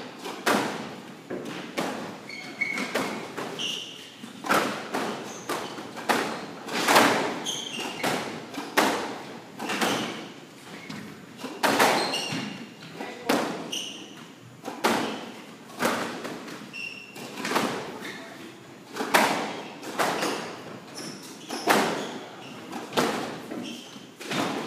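Squash rally: the rubber ball smacking off rackets and the court walls again and again, about one hit a second, each with a short echo, mixed with brief squeaks of sneakers on the hardwood floor.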